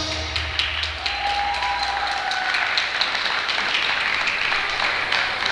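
Audience applauding, many individual claps heard through an even patter.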